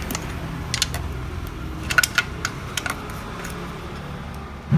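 Scattered light metallic clicks and taps of a tube wrench working the valve-cover bolts loose, at irregular intervals, over a steady low hum.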